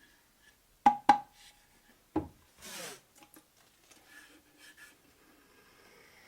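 Hand woodworking on a small wooden piece: two sharp knocks of wood in quick succession, a third knock a second later, then a short scrape or rub across the wood, followed by light taps and clicks.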